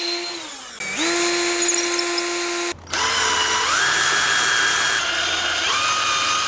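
Power drill motor whining in three runs. The first winds down near the start, the second ends with a short cut-out, and in the third the speed steps up and later drops. This is the drill working the screw holes through the Picatinny rail and wood into the handle.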